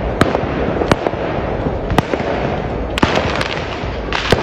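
Fireworks going off: about five sharp bangs, roughly one a second, over a steady rushing noise.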